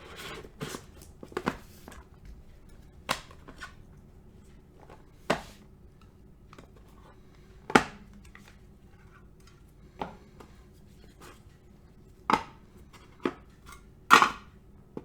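Cardboard card boxes and packs being handled on a tabletop: scattered sharp taps and light rustles, a few seconds apart, the loudest near the end.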